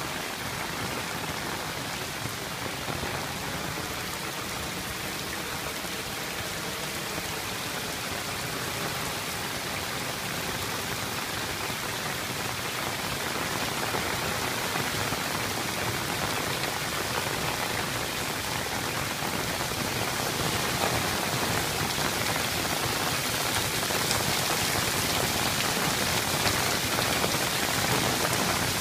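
Heavy rain falling on pavement and standing water, a steady hiss that grows louder through the second half.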